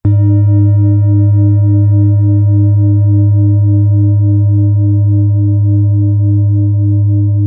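A loud, sustained ringing tone that starts suddenly, with a deep steady hum, a middle note that pulses in a regular wobble, and higher overtones that slowly fade away.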